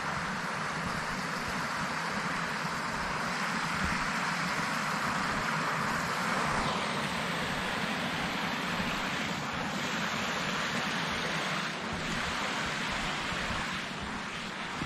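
Swollen forest stream rushing over small cascades and rapids: a steady, unbroken noise of fast water.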